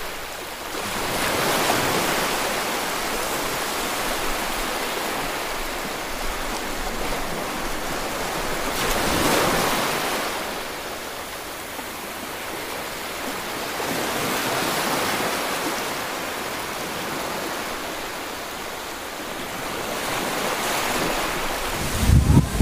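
Sea waves washing onto a sandy beach: a steady hiss that swells and fades several times. A louder low rumble on the microphone comes in near the end.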